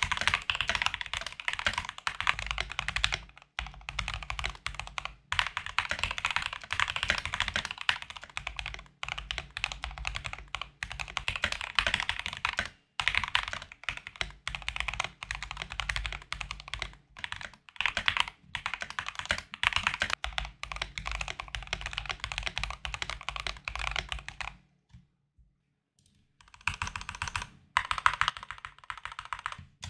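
Fast typing on a Drop CTRL mechanical keyboard without the tape mod, fitted with Everglide Aqua King switches lubed with Krytox 205g0 and Durock stabilizers. A quick stream of key clacks carries the higher-pitched clack of keys bottoming out that tape takes away. The typing stops for about a second and a half near the end, then starts again.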